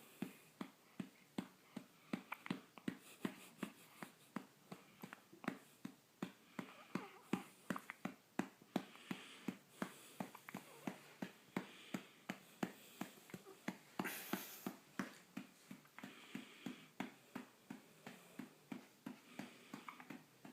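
A hand patting a newborn baby's back to bring up a burp: soft, evenly spaced pats, about two to three a second, kept up steadily.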